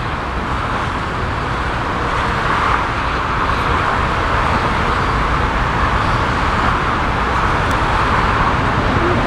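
Cessna 525C Citation CJ4 twin-turbofan business jet on landing: a steady rushing jet noise over a low rumble, growing slowly louder.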